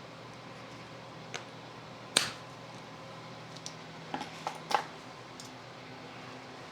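Scattered sharp clicks and knocks of tools and parts being handled during a shock rebuild: one loud knock about two seconds in and a cluster of lighter taps around four to five seconds, over a steady low hum.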